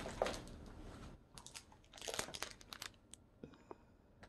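Thin clear plastic jewellery bag crinkling as it is handled, in short scattered crackles, faint.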